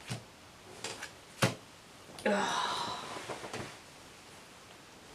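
Playing cards being laid down on a cloth-covered table: a few soft taps, the sharpest about a second and a half in. A player's short wordless voice follows a little after two seconds, with a few light taps after it.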